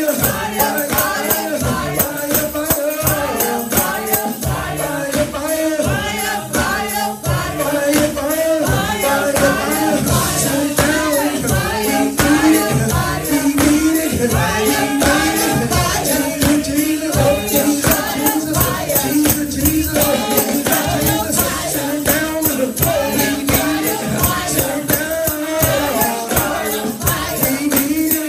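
Live gospel praise music: a tambourine shaken on a steady, fast beat under singing voices.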